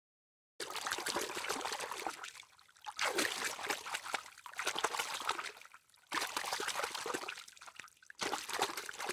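Water trickling and splashing in four stretches of one to three seconds, with short breaks between them.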